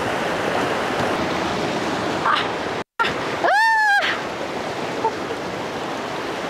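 Fast-flowing muddy floodwater rushing past a river bank, a steady loud noise of churning water. It cuts out for an instant about three seconds in. Just after that comes a short high call that rises and falls in pitch, like a voice.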